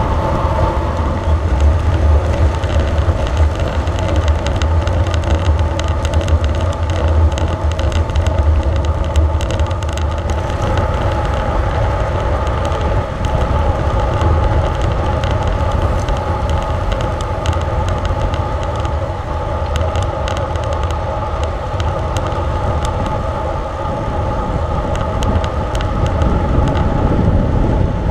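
Road bike riding at speed, heard through a camera microphone: steady wind rumble and tyre-on-road noise with small scattered rattles, the rumble heaviest in the first ten seconds or so.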